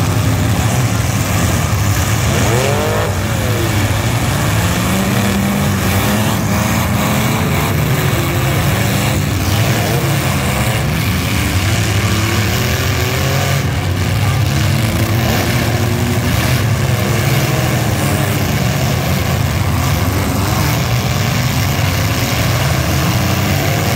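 Many compact-car engines running and revving hard together in a demolition derby, with several sharp crunches as the cars ram each other.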